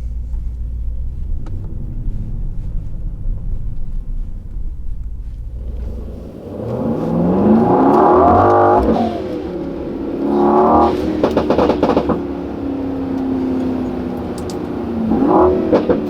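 Brabus 900's 4.5-litre twin-turbo V8 in a Mercedes-AMG GLE 63 S Coupe, in Sport Plus mode. It rumbles low at cruise, then about six seconds in revs rise hard through a gear change under acceleration. A second short burst of revs follows, then a rapid run of exhaust crackles (the pops and bangs of Sport Plus) and a steady drone, with one more brief rev near the end.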